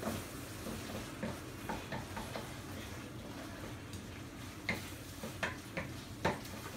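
Wooden spatula stirring and scraping food in a frying pan over a low sizzle, with scattered taps and scrapes against the pan.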